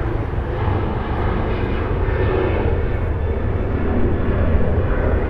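An airplane passing, its engine noise a steady rumble that grows a little louder toward the end.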